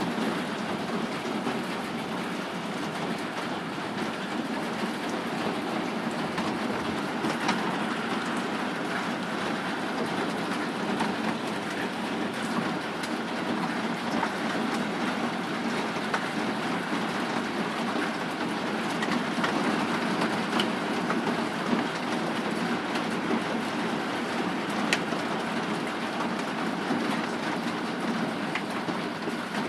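Hail falling hard: a steady, dense clatter of hailstones striking surfaces, with scattered sharper clicks of single stones throughout.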